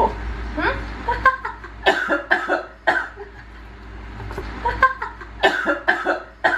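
Coughing in two fits of several sharp coughs, about two seconds in and again near the end, from eating very spicy Buldak fire noodles.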